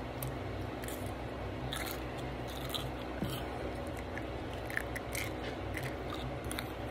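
A toddler chewing a mouthful of cucumber close to the microphone: small, scattered wet mouth clicks and smacks.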